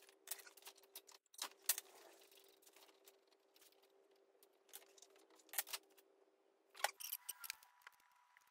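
Quiet workshop handling of coilover parts and tools: a few sharp metal clicks and clinks, scattered and sparse, over a faint steady hum.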